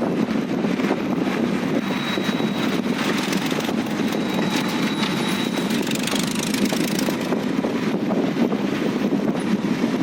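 Steady rumble of vehicle travel, with a faint thin high whine for a few seconds in the middle.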